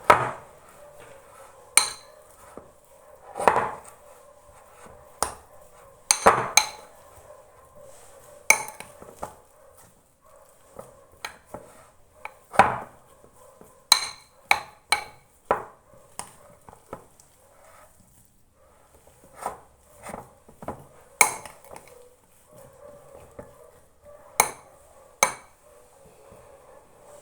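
Kitchen utensils knocking and clinking against a bowl or pot in irregular sharp knocks, some in quick pairs, as food is worked by hand.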